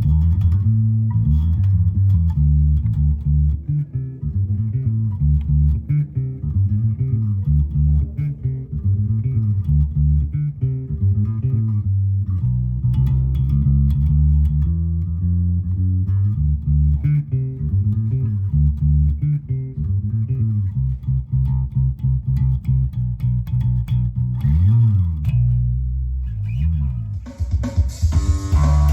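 Music Man StingRay electric bass played slap-style through a small Hartke Kickback combo amp: percussive popped and thumbed notes with a few slides. Near the end the sound turns suddenly brighter and fuller.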